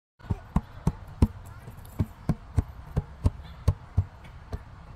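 A baby's hands slapping the top of a hollow plastic playground drum seat: a run of about a dozen hollow thuds, roughly three a second, the last few weaker.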